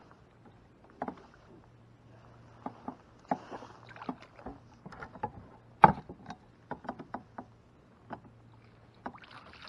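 Scattered knocks and clicks of handling fish and gear in a kayak, with one sharp, loud knock about six seconds in, over a faint steady low hum.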